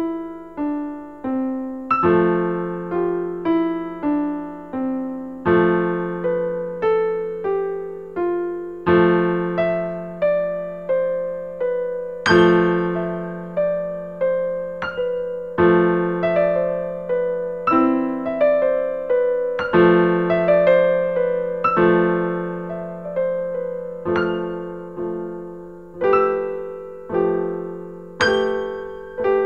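Solo piano music: unhurried melody notes, each ringing and fading, over a low note re-struck every three seconds or so, with phrases that step downward.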